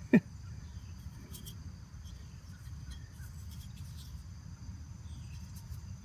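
Steady high-pitched chorus of insects in grass, over a low steady rumble. A single short, loud falling sound comes right at the start.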